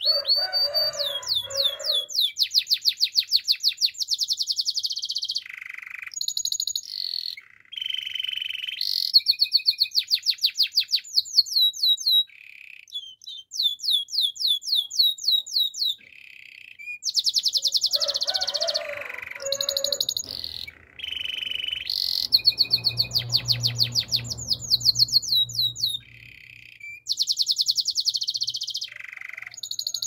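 Domestic canary singing: phrase after phrase of rapid trills of repeated high notes, each phrase at a different pitch, with short pauses between them.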